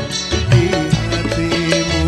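Live band playing an instrumental passage between sung verses: a melodic lead line with sliding notes over bass and drums keeping a steady beat.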